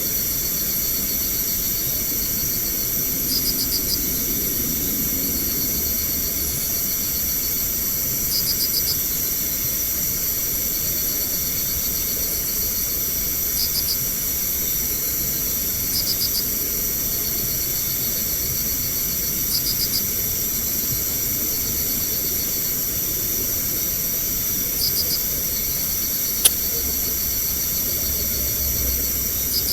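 Night insects in a steady high-pitched chorus, with a short rapidly pulsing chirp repeating every few seconds. A single sharp click sounds near the end.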